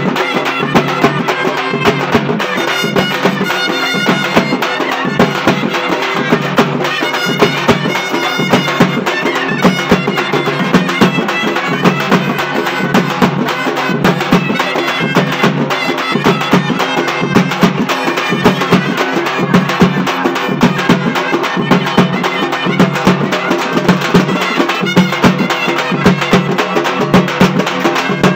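Live traditional folk music: a reedy wind instrument plays a melody over a steady drone, with drums beating a steady rhythm.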